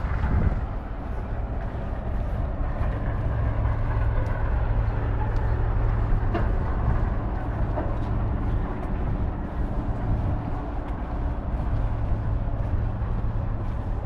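Steady low rumble of urban traffic with a constant background hum, and a few faint ticks scattered through it.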